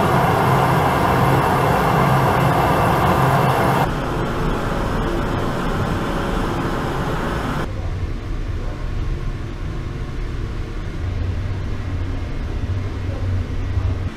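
Forced-air kiln burner and electric blower running, a steady rushing flame noise over a low hum. About four seconds in it turns duller, and about eight seconds in it drops to a deeper rumble.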